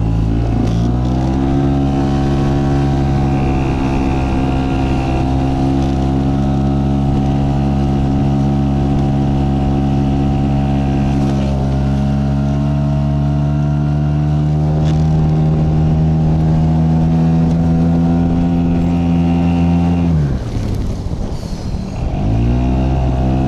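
Outboard motor driving an inflatable boat at speed: it revs up in the first second or so, then holds a steady high drone. About twenty seconds in it is throttled back, and it picks up again just before the end.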